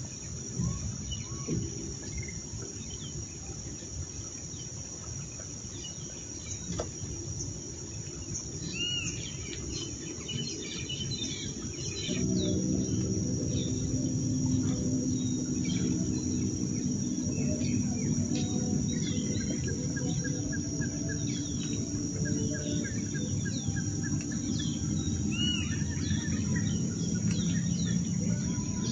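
Birds calling and chirping over a steady high insect drone. About twelve seconds in, a louder low hum with a steady pitch sets in and carries on.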